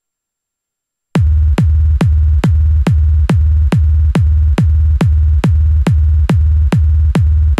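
Reason's Redrum drum machine playing a steady four-on-the-floor electronic kick drum at 140 BPM, starting about a second in. Each kick is a quick pitch drop into a long low boom that lasts almost to the next beat.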